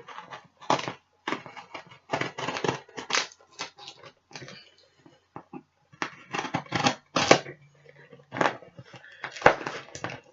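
Packing tape on a cardboard shipping box being cut and torn open: irregular scraping, crackling and ripping sounds in short clusters with brief pauses.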